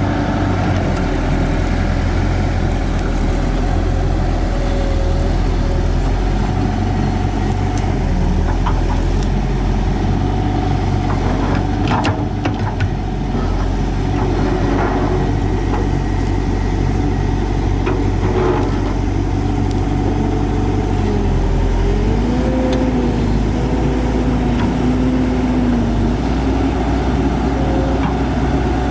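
CAT 312C L tracked excavator's diesel engine running steadily while the boom, arm and bucket are worked, with hydraulic whine gliding up and down in pitch. A few sharp knocks come around the middle.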